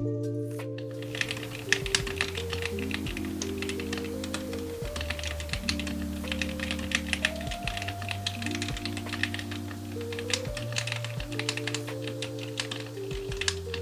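Typing on a Drop Alt mechanical keyboard with Kailh Speed Silver linear switches: a fast, continuous run of keystroke clacks that starts about a second in.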